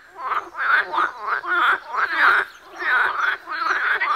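Frogs croaking: a run of short, rasping calls, about two a second.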